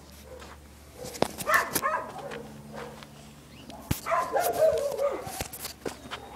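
Dog barking in two bouts, one about a second and a half in and a longer one around four seconds in, with scattered clicks and rustling.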